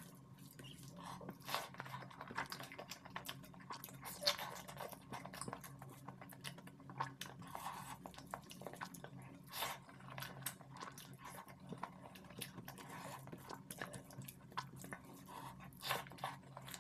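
Close-miked hand-eating sounds: fingers squishing rice into egg curry on a steel plate, and wet chewing, with many irregular small clicks and smacks. A faint steady low hum runs underneath.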